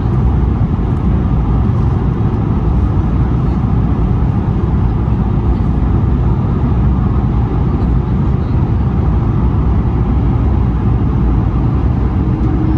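Steady cabin noise inside an Airbus A220-100 descending on approach: the even rumble of its Pratt & Whitney PW1500G geared turbofan engines mixed with airflow noise, heard from a window seat beside the wing.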